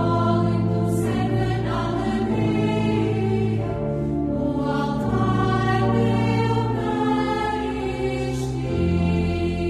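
Choral music: a choir singing slow, long-held notes over a sustained low accompaniment.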